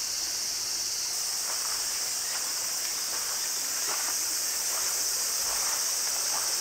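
A steady, high-pitched shrilling chorus of insects that grows fuller about a second in.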